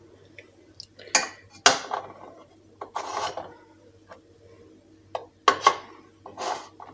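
Porcelain cups knocking and clinking against a stainless steel pot and each other as they are set into it one by one, several separate clinks.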